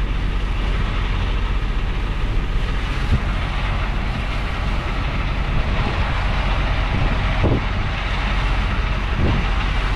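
Strong, gusty storm wind buffeting a parked semi truck: a steady rushing noise over a constant low rumble.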